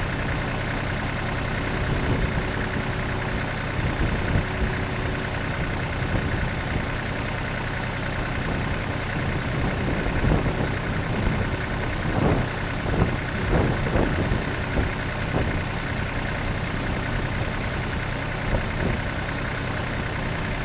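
Lawn mower engine idling steadily, with a few brief louder bumps about halfway through.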